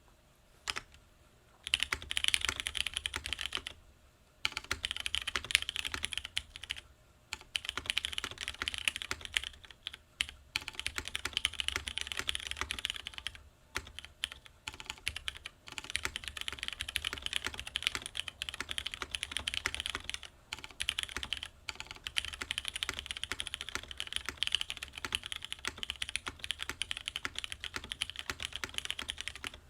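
Fast, continuous typing on a custom Geon Frog TKL mechanical keyboard with broken-in MX Brown tactile switches, stem-lubed, on a polycarbonate plate with GMK keycaps and no case foam. It starts about two seconds in and comes in long runs of rapid keystrokes, with a few short pauses.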